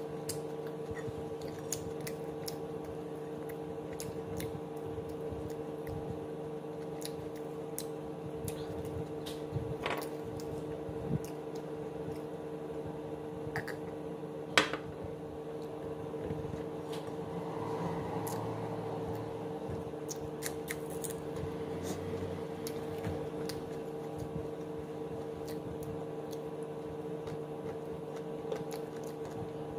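Close-up eating sounds: soft chewing and squishing of rice and chicken eaten by hand, with small clicks against the plate, over a steady electrical hum. A sharper click comes about halfway through.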